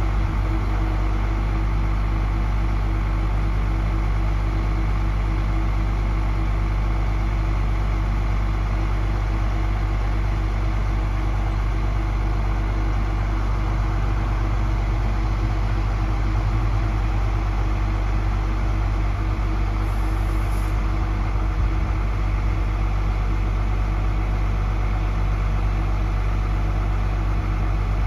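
Terex RT 175 rough terrain crane's diesel engine idling steadily.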